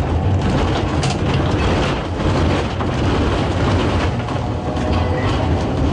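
Vintage electric heritage tram running along its rails, heard from inside the wooden car: a steady rumble of wheels and running gear, with a few clicks from the track.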